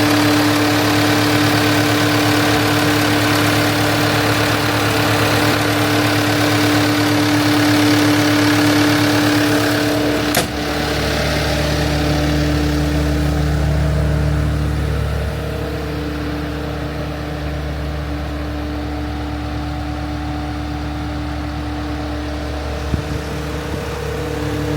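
Caterpillar 299D2 skid steer's four-cylinder C3.8 diesel engine running. About ten seconds in there is a sharp click and the engine settles to a lower, quieter speed, then picks up again near the end.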